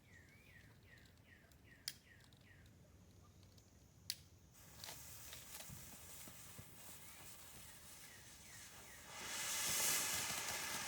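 A ground fountain firework lit: a sharp click, a soft hiss building, then about nine seconds in the fountain erupts into a loud, steady spraying hiss.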